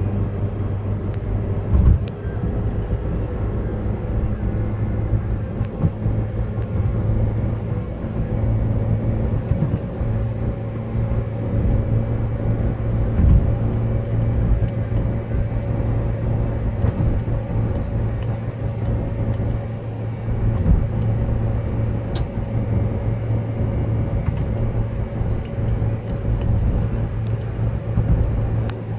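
Car driving at highway speed: a steady low drone of engine and tyres, with a few short knocks.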